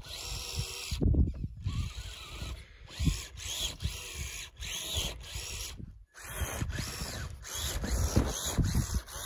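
Traxxas TRX-4 crawler's electric motor and gearbox whining in repeated bursts, the pitch rising and falling as the throttle is blipped. The snow tracks are churning with a front track buried, and the truck is stuck.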